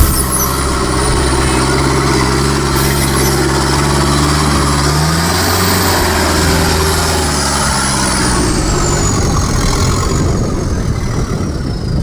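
Engine of an off-road 4x4 competition vehicle running steadily near idle, with a thin high whistle that slowly rises and then falls.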